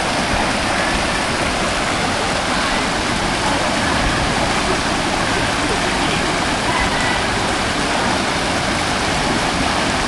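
Steady rush of a small river waterfall pouring into a rocky pool.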